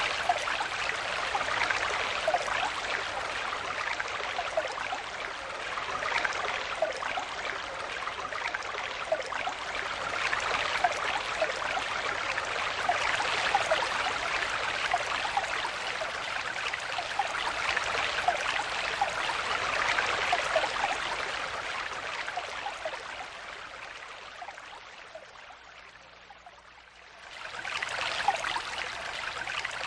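Stream water flowing and babbling over stones, a steady rush full of small bubbling splashes that swells and eases. About 24 seconds in it fades down and about three seconds later comes back up.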